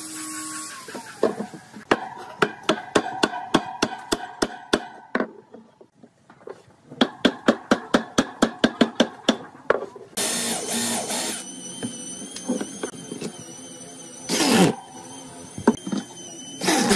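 A hammer knocks a wooden cap down onto a bicycle wheel rim in two runs of quick, even blows with a short pause between. After that, an electric drill runs in three short bursts, driving screws through the steel rim into the wood.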